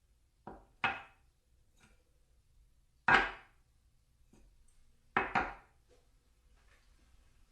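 Plates knocked down against a table in separate clattering knocks. There is a quick pair about half a second in, the loudest knock about three seconds in, and another quick pair just after five seconds.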